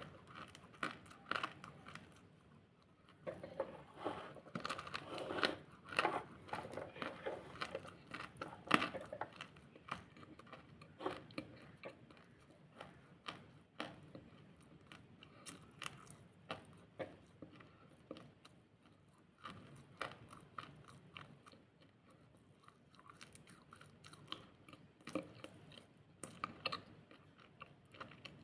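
Close-up biting and chewing of crunchy food: many short, sharp crunches, thick and fast in the first several seconds, then sparser.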